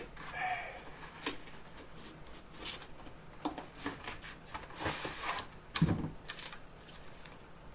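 Cardboard packaging being handled: rustling and scraping as a cardboard divider and packing sheets are pulled out of a box, with scattered knocks and a single dull thump near six seconds in.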